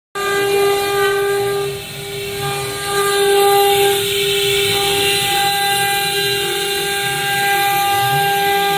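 STS1325H stone CNC router's spindle running at a steady, high whine as its bit cuts a wet stone slab under a water coolant spray, with a hiss of cutting over it.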